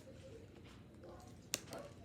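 Quiet room with a single sharp click or tap about one and a half seconds in.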